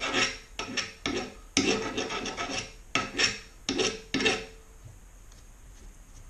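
A hand tool worked back and forth on the wooden hatchet handle clamped in the vise, in a run of quick scraping strokes that stops about four and a half seconds in.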